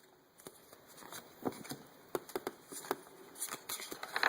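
A foil Pokémon booster pack wrapper and its trading cards being handled after the pack is torn open: scattered light rustles and small clicks.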